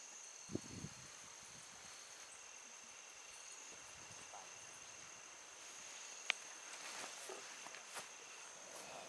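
Faint, steady high-pitched trilling of insects in the mountain forest, several overlapping even tones. A few sharp clicks or knocks cut through, the loudest about six seconds in.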